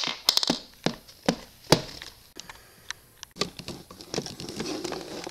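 Hard plastic toy-kitchen pieces clicking and knocking as they are handled: toy dishes being put into a toy dishwasher's rack. The clicks are irregular, several a second, with a few louder knocks in the first two seconds.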